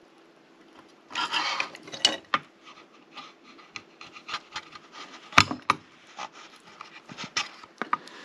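A chisel scraping across a 3D-printed PETG part, shaving the plastic flush where it stands proud around freshly pressed brass heat-set inserts. It comes as a run of short scraping strokes starting about a second in, with a sharp click about halfway through.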